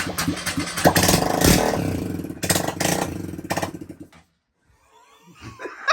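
Honda Grom's 125 cc single-cylinder four-stroke engine being cranked on the electric starter, catching about a second in and revving briefly, then stopping about four seconds in. It is the first start of a freshly fitted second-hand engine, firing once air has been primed out of the fuel system, with no exhaust yet fitted.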